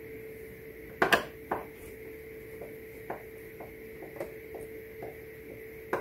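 Screwdriver and screws clicking and tapping against the plastic dispenser control board: a loud double clack about a second in, another half a second later, then a scatter of light ticks. A steady hum runs underneath.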